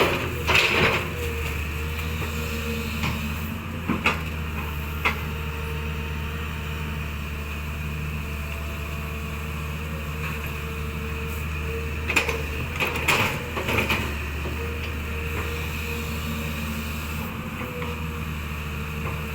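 A steady low mechanical hum with a few sharp knocks and clatters: one near the start, single knocks about four and five seconds in, and a cluster around twelve to fourteen seconds in.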